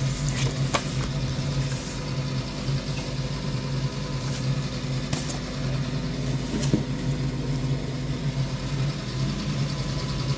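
Steady low mechanical hum, like a motor or appliance running in the background, with a few faint clicks from handling.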